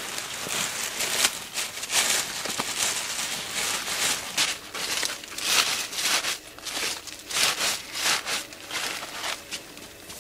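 Irregular crinkling and rustling: a foil survival blanket being handled and fixed to a tarp, then handfuls of dry oak leaves being crammed into a nylon stuff sack.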